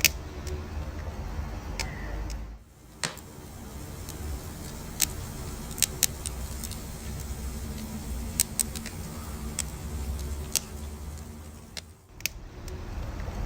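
Wood fire crackling: irregular sharp pops and snaps over a low, steady rumble of burning. The sound drops away briefly twice, about two and a half seconds in and again near the end.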